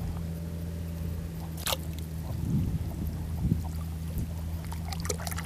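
Shallow seawater trickling and lapping, with sharp clicks about two seconds in and near the end, over a steady low hum.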